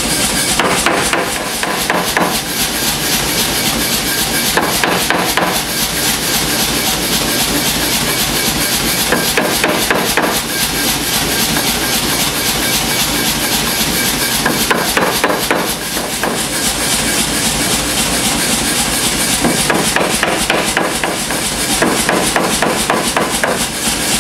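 Power hammer striking a red-hot steel bar between its flat dies in about five bursts of rapid blows, over steady background noise.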